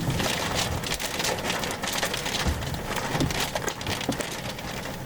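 Wind-driven rain pelting the car from a thunderstorm's rear-flank downdraft, a dense steady patter of many small hits, heard from inside the car as the gusts pick up.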